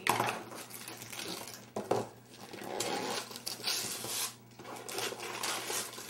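Wrapping paper rustling and tearing as a present is unwrapped by hand, with a couple of sharp knocks near the start and about two seconds in.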